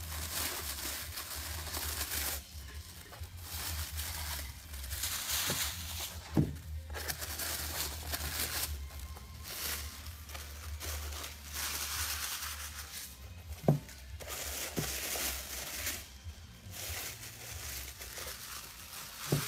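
Packing wrap rustling and crinkling in bursts as model parts are unwrapped and handled over a foam tray, with two sharp knocks, one about six seconds in and a louder one near fourteen seconds. A steady low hum runs underneath.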